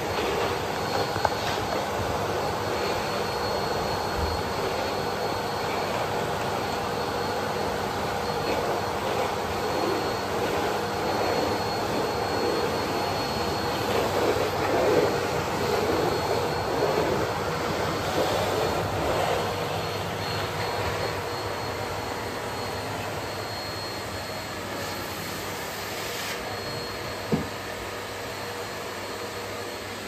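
Bosch BGS21X320 bagless canister vacuum cleaner running steadily: a rush of air with a faint high whine as its floor nozzle is worked over a hard floor. There is a brief knock near the end.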